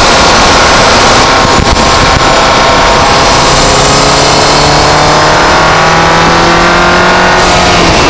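Volkswagen GTI's turbocharged four-cylinder, fitted with an APR Carbonio intake, pulling through a gear with the engine note slowly rising and a high turbo whistle climbing over it. The whistle falls away a little before the end as the boost drops off.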